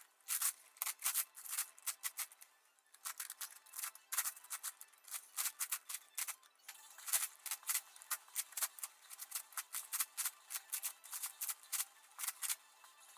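Plastic layers of an 11x11x11 puzzle cube turned rapidly by hand: fast runs of clicks and clacks, easing off briefly about two seconds in.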